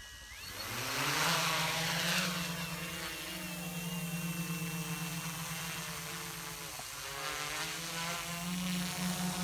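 Quadcopter drone's four electric rotors spinning up for takeoff, their pitch rising in the first second and loudest as it lifts off, then a steady hum as it climbs and hovers.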